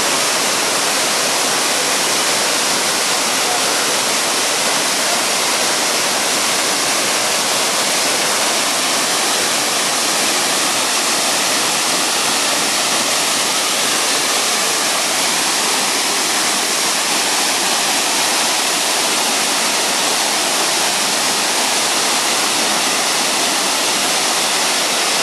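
Waterfall cascading over rocks into a pool: a loud, steady rush of falling water.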